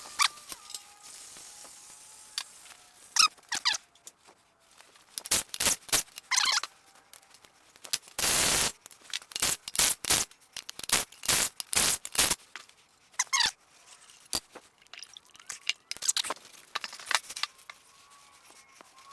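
Irregular metallic clanks and knocks of tools and parts being handled while a Ford 302 V8 cylinder head is unbolted and removed, with a brief run of an impact wrench about eight seconds in. Faint squeaks come near the start and end.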